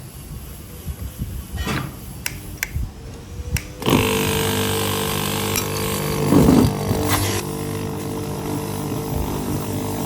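A few sharp knocks, then about four seconds in an electric workshop motor or power tool switches on abruptly and runs at a steady pitch, with a brief louder rasp a couple of seconds later.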